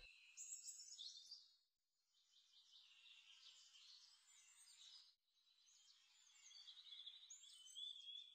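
Faint birds chirping and twittering in several short bursts with pauses between them.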